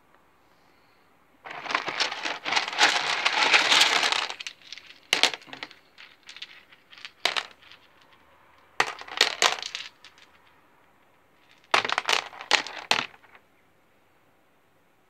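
Hard clear crystal chunks clinking and rattling against each other and a plastic tub as a hand rummages through and scoops them up: a long rattle about a second and a half in, a few scattered clicks, then two shorter bursts of clinking.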